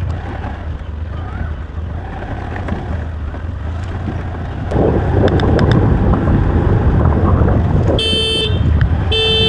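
Motor scooter running while being ridden, with wind and road noise that grows louder about halfway through. A vehicle horn honks twice near the end, each honk about half a second long.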